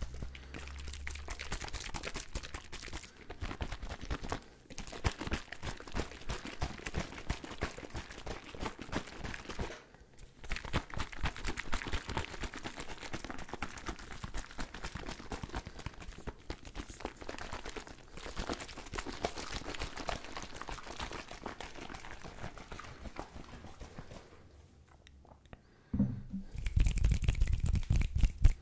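Close-miked ASMR tapping: fast, dense taps and scratches on an object, in long runs with brief pauses. The sound turns louder and fuller for the last couple of seconds.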